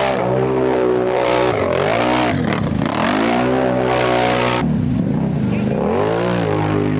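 ATV engine revving hard, its pitch dipping and climbing again several times; the sound changes abruptly about two-thirds of the way through.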